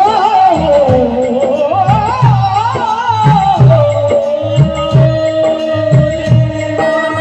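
Hindi devotional bhajan music: a melodic line winds up and down, then settles into a long held note about three and a half seconds in, over a steady hand-drum beat.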